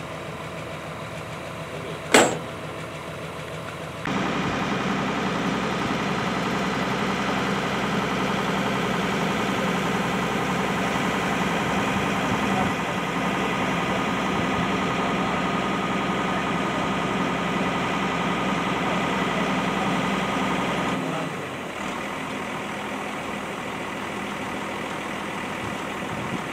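Heavy diesel engine of an excavator running steadily, with a sharp metallic clank about two seconds in. The engine sound jumps louder about four seconds in and drops back a little later on.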